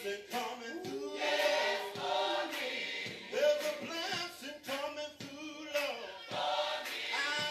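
Recorded gospel choir singing with band accompaniment, voices in harmony over regular drum hits.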